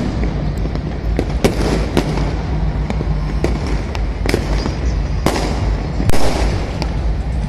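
Fireworks and firecrackers going off around the neighbourhood: a string of sharp bangs at irregular intervals over a continuous low rumble. The loudest bang comes just past six seconds in.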